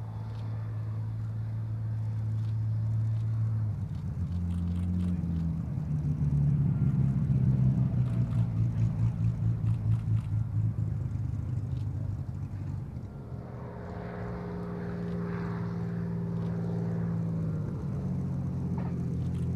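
Supermarine Spitfires' Rolls-Royce Merlin V-12 engines running at high power on takeoff and low passes along the runway, with a regular throbbing pulse as one goes by about seven to eleven seconds in. The sound shifts abruptly at about four and eighteen seconds, where clips are cut together.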